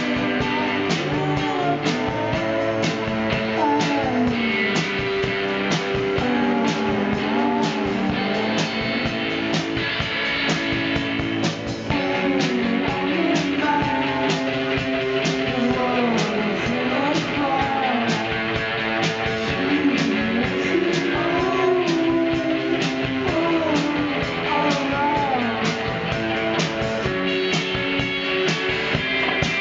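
Live rock band playing: guitars over a drum kit keeping a steady beat.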